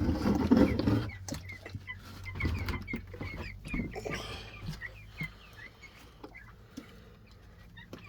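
Chickens clucking, with a run of short, high calls in the middle. A burst of rustling and handling noise opens the first second.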